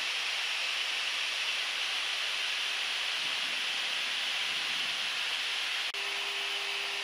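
Steady rushing air noise inside a Gulfstream G-IV jet's cockpit in flight. About six seconds in it breaks off for an instant and comes back with a faint steady hum added.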